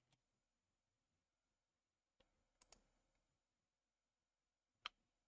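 Near silence broken by a few faint, separate clicks of a computer mouse and keys: one at the start, three between two and three seconds in, and one near the end.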